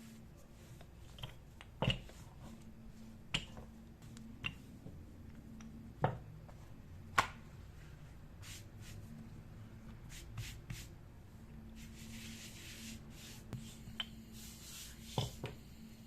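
Irregular light taps and knocks from hands and kitchen utensils at work, about ten in all, with two short spells of soft rubbing near the end, over a steady low hum.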